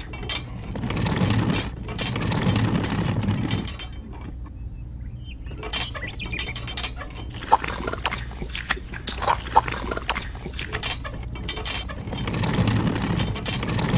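Handling noise from miniature toy construction models: a scraping, sliding stretch as wet cement is tipped out of a toy wheelbarrow, then scattered sharp clicks and rattles of the small wheelbarrow and mixer parts, with another scraping stretch near the end.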